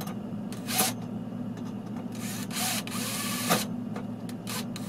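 Cordless drill-driver driving a flathead screw in, running in a short burst under a second in and then a longer run from about two to three and a half seconds in, over a steady low hum.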